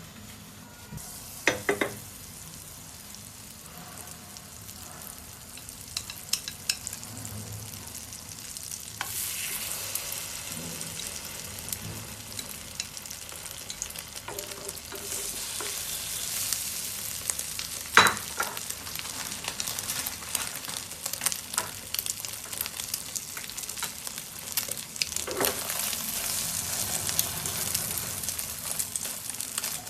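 Food sizzling as it fries in a pan, stirred with a utensil that clicks and knocks against the pan now and then. The sizzle grows louder about nine seconds in, and there is one sharp knock about eighteen seconds in.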